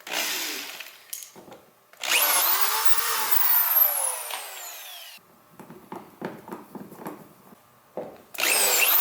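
Power drill running in short bursts against the kayak's hull while fitting anchor trolley hardware: a brief run, then a longer run of about three seconds whose whine rises and then falls as the motor slows, with small knocks and clicks between runs and another short burst near the end.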